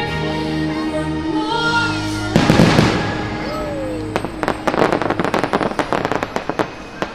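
Holiday show music plays over park speakers, then about two and a half seconds in a firework shell goes off with a loud bang. A little later a rapid run of sharp crackling pops from crackle fireworks follows for about two and a half seconds and dies away near the end.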